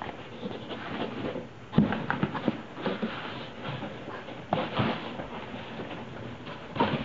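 Cardboard box and packing handled while a laser printer is pulled out of it: irregular rustling and scraping with scattered knocks, the loudest about two seconds in.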